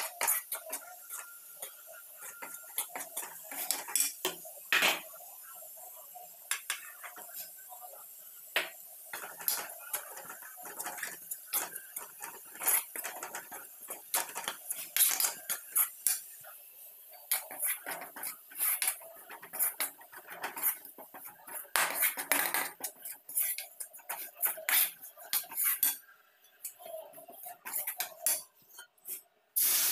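A spatula scraping and knocking around a pan as it stirs dry besan (gram flour) being roasted. The scrapes and clinks are short and irregular, quieter for a moment near the end.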